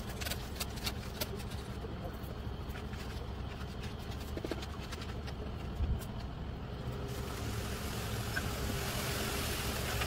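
Ready-mix concrete mixer truck's diesel engine running steadily, with scattered sharp clicks in the first couple of seconds and a hiss that builds about seven seconds in.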